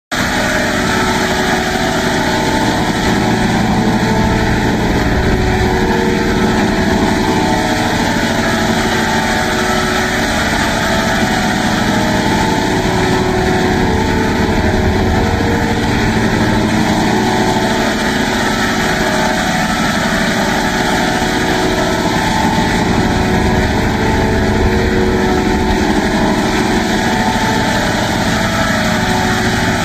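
A loud, continuous buzzing drone, engine-like, with no breaks. Its tone shifts slowly, as if swept through a phaser-type effect.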